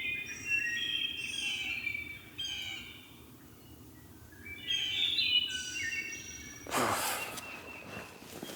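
A songbird singing two phrases of quick, stepped high notes in the woods, followed about seven seconds in by a brief rustle in the leaves.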